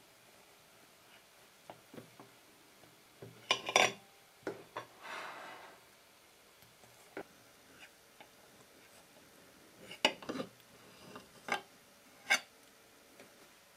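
A table knife cutting through a grape-topped tart, tapping and scraping against the plate: scattered sharp clinks with a short scrape, the loudest clusters about four seconds in and again near ten seconds.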